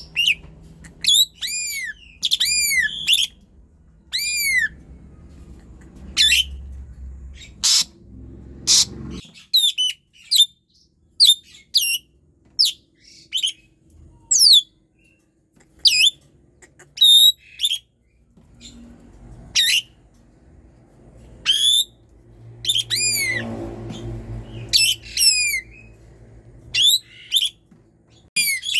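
Asian pied starling singing, a loud and varied run of arched whistled notes, sharp squawks and clicks broken by short pauses. It is in the constant, persistent song that keepers call gacor.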